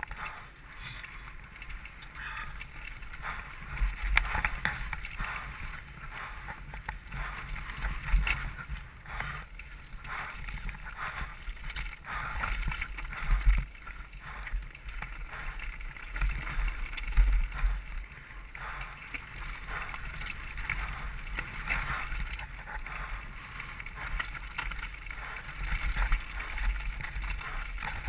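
Mountain bike ridden fast downhill over rocky dirt singletrack: tyres rolling over dirt and stones and the bike rattling over bumps, with wind buffeting the helmet-camera microphone as a steady deep rumble.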